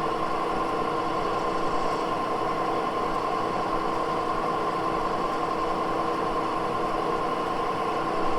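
Moore No. 2 jig borer running steadily while a dowel pin hole is bored out with a circle-ground end mill fed by hand: an even machine hum with a steady whine.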